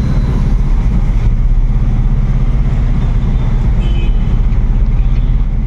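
Three-wheeler cargo vehicle's engine running steadily while driving, a loud, even low drone.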